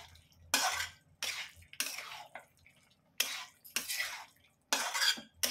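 A spatula stirring and scraping thick minced-meat-and-liver curry around a pan, in about seven irregular strokes roughly half a second to a second apart.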